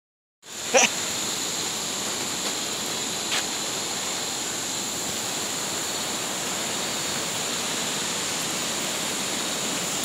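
Steady rushing hiss of tropical forest ambience with a high, steady drone above it. A sharp knock comes just under a second in, and a fainter one at about three and a half seconds.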